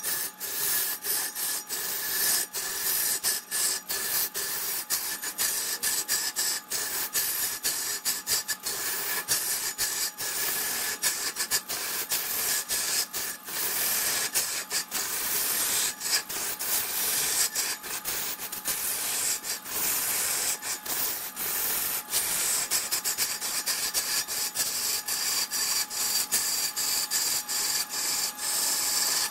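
A turning tool cutting into wood spinning on a lathe: a rough, steady scraping hiss that flickers rapidly in and out, over a faint steady hum from the machine.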